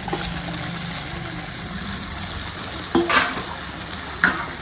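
Chicken pieces frying in hot oil in a pan, sizzling steadily while being stirred, with two short sharp scrapes about three seconds in and a second later.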